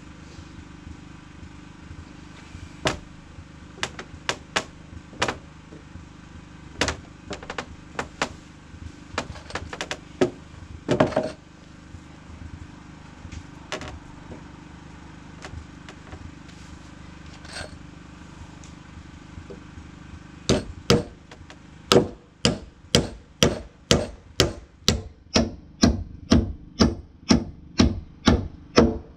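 Hammer blows on wooden deck boards: a few scattered knocks at first, then from about twenty seconds in a steady run of strikes, about two a second, as when driving nails.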